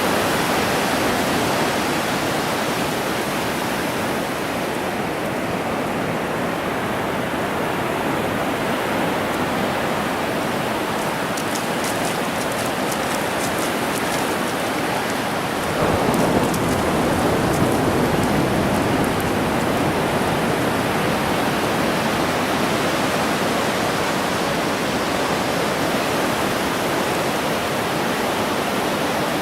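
Ocean surf rushing steadily onto the beach, swelling a little about halfway through as a wave breaks closer.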